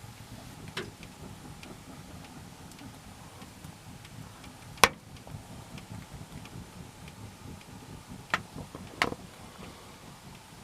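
A few sharp knocks and clicks, the loudest about halfway through and two more close together near the end, with faint scattered ticks between them over a low steady rumble.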